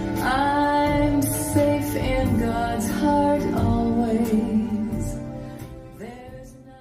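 Closing bars of a soft song with instrumental accompaniment and a hint of female voice, fading out over the last couple of seconds.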